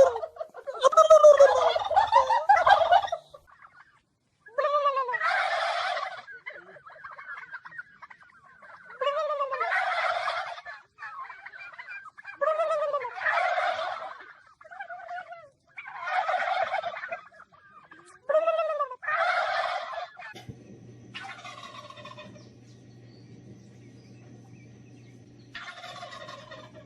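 Turkey gobbling again and again, a call about every three seconds, each an arching note running into a rattling burst. The last couple of gobbles are fainter, with a steady low hum under them.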